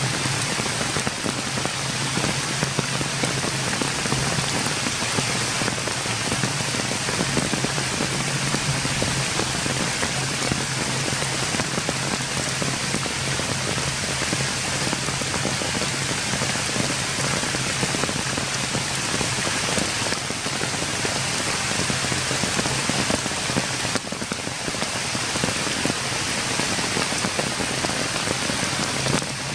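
Steady rain falling on wet ground, stones and puddles, with a low steady hum underneath.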